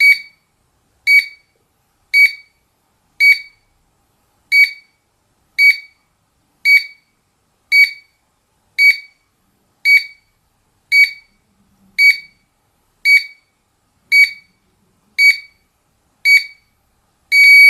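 GSM alarm control panel beeping through its exit-delay countdown while arming: a short high beep about once a second, repeated evenly about seventeen times. The last beep is slightly longer as the panel arms.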